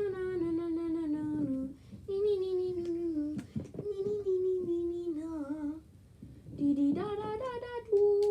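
A high voice humming a wordless tune in long held notes, in several short phrases with brief breaks between them.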